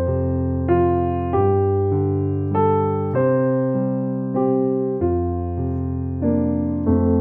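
Background piano music: slow chords struck about once every half second to second, each fading away before the next.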